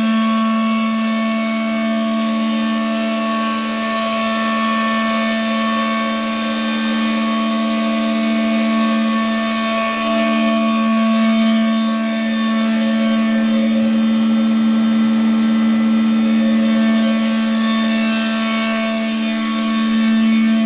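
Automated circumferential MIG welding machine running, a steady hum with an even hiss over it, briefly dipping about halfway through.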